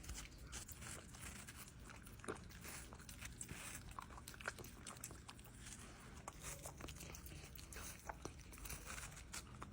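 Faint, irregular small clicks and crunches from a dog, over a low steady hum.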